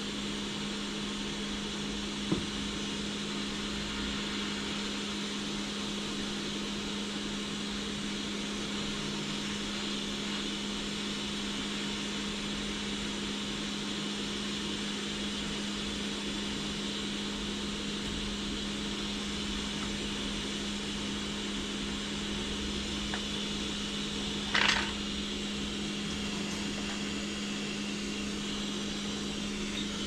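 Hot-air rework gun of a Quick 861DW station blowing steadily, a constant whir with a low hum, heating the solder joints of a PS4 USB port to desolder it. A single sharp tick comes about two seconds in and a brief louder noise about twenty-five seconds in.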